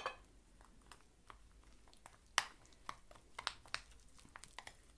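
Metal spoon stirring a thick cornstarch-and-oil paste in a ceramic bowl: soft scraping with scattered light clicks of the spoon against the bowl, the sharpest about two and a half seconds in.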